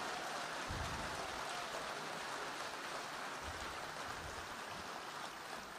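Crowd applause, a dense even clatter of many hands that slowly fades.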